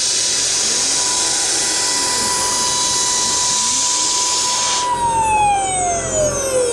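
CNC router spindle running with a steady high whine and hiss, then switched off about five seconds in: the hiss stops at once and the whine falls steadily in pitch as the spindle spins down.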